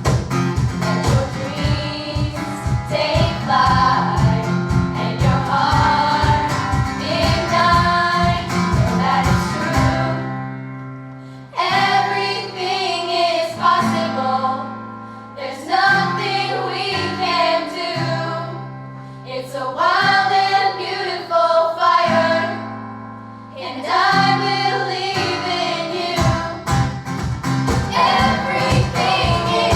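A song with singing voices over a steady drum beat; the beat drops out about a third of the way in, leaving held chords and voice, and comes back near the end.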